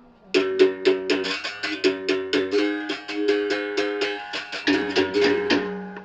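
Berimbau played with a stick: a fast run of sharp, twangy strikes on the steel wire, about six a second. The pitch switches back and forth between two or three notes as the wire is stopped and released. The run starts a third of a second in and fades out near the end.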